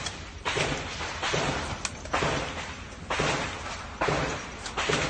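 Rifle shots fired one after another, about six in all at roughly one a second, each ringing out briefly.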